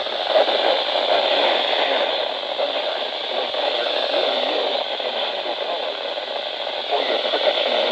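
Radio static: a steady hiss from a radio receiver with no clear words coming through.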